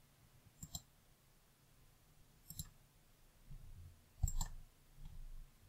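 A computer mouse button clicking faintly a handful of times, some in quick pairs.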